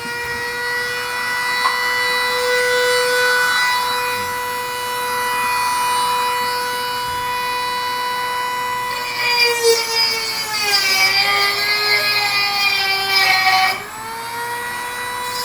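Dremel rotary tool running at high speed with a steady whine, grinding rust out of rotted car body metal. From about nine to fourteen seconds in, the pitch sags and the sound turns rougher as the tool is pressed into the metal, then it climbs back up.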